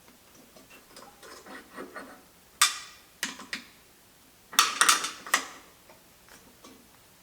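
Steel vise-base parts being handled during assembly, with metal-on-metal clicks and clanks. Light ticking early gives way to a sharp clank a little over two seconds in, and a louder burst of several clanks around the middle.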